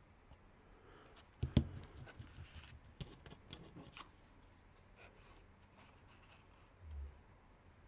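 Hands handling pieces of card on a craft table: soft rustling of card with a few sharp knocks on the tabletop, the loudest about one and a half seconds in, as the glue bottle and card are set down and picked up. A soft low thud comes near the end.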